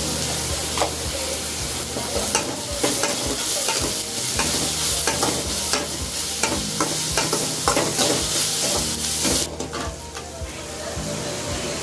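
Chopped onions frying in hot oil in an aluminium kadai, sizzling while a metal spatula stirs and scrapes the pan with many short clicks and knocks. The onions are being sautéed toward golden brown. The sizzle fades about nine and a half seconds in.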